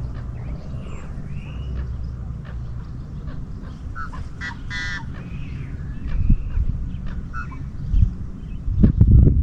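Outdoor bird calls: a short honking call a little before the middle, among several brief chirps and glides. Under them runs a low rumble that swells into a few heavy thumps near the end.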